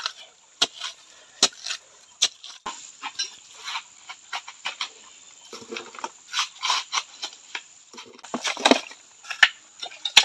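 Wet clay and fine sand being dug from a riverbank and dropped by the handful into a wire sieve on a gold pan: a run of irregular knocks and scrapes, a few each second.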